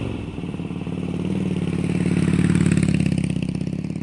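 Harley-Davidson V-twin motorcycle engine running with an evenly pulsing exhaust note, swelling louder toward the middle and easing off near the end.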